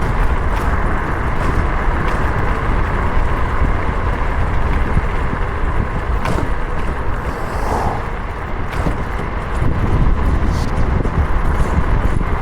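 Steady wind rush over the microphone, with road noise, from riding a bike downhill at speed.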